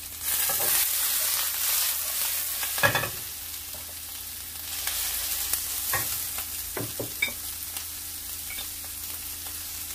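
Sliced bamboo shoots and vegetables stir-frying in hot oil in a frying pan: a steady sizzle that swells louder twice as the pan is worked. A few sharp clicks and knocks, the loudest about three seconds in.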